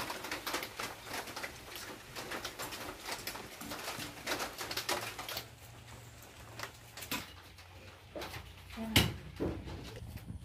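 Dry cinnamon bark quills crackling and rustling as they are handled and packed by hand: a dense run of small dry crackles that thins out about halfway, with a sharp knock near the end.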